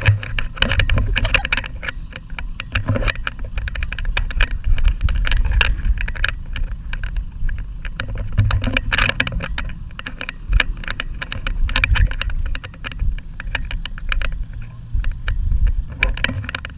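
Four-wheel-drive vehicles running on a sandy track: a steady low engine and wind rumble, with many sharp clicks and rattles throughout.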